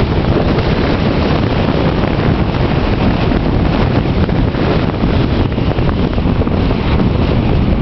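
Wind buffeting the microphone of a camera filming from a moving car, with steady road noise from the car underneath. The rumble is loud and continuous, heaviest in the low end.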